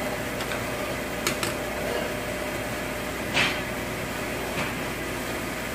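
Light metal clicks and a short clatter about three and a half seconds in as the camshaft sprocket and timing chain are worked off a 5.7 Hemi engine block, over a steady shop hum.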